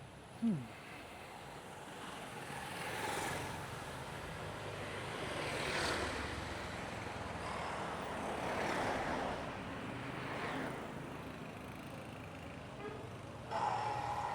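Street traffic: vehicles pass one after another, each swelling up and fading away, with a brief sharp falling sound about half a second in and a short beep near the end.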